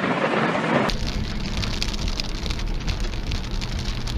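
Rain falling steadily in a thunderstorm, a dense even hiss. About a second in, the sound changes abruptly and a low rumble joins underneath.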